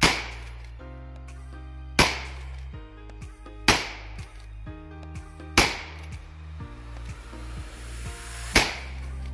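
Five shots from a Winchester Model 94 lever-action rifle in .30-30 Winchester, fired in quick succession about two seconds apart, with a longer pause before the last shot. Each report is sharp and rings on briefly, and small clicks fall between the shots.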